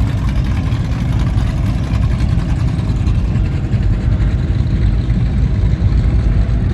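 High-performance powerboat engines idling at low speed with a deep, steady rumble.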